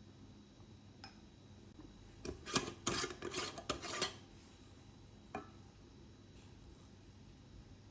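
Kitchen utensils clinking and scraping against a dish in a burst of about two seconds, with a single click shortly before and another after.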